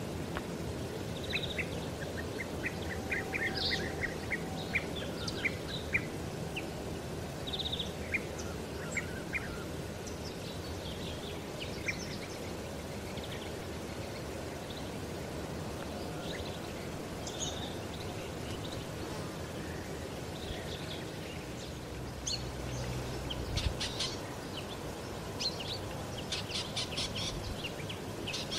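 Small birds chirping in scattered short calls over a steady low background rumble, with a quicker run of rapid calls near the end.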